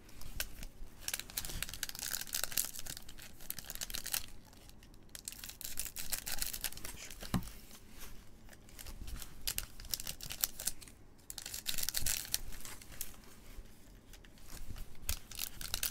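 Foil trading-card pack wrappers crinkling and rustling as the packs are handled and stacked, in spells with short pauses between.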